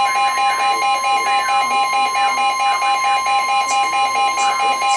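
NOAA Weather Radio warning alarm tone: a steady, unbroken high tone, the attention signal that comes before a severe thunderstorm warning is read. Over it, a weather radio receiver's alert sounds a lower beep that pulses rapidly, several times a second.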